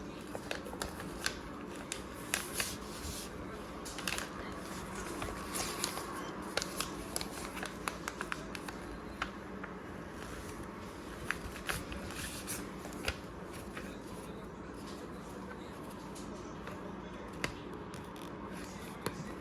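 A sheet of paper being handled and folded into a plane: irregular crisp rustles and sharp creasing clicks, busiest in the first half, over a steady background hum.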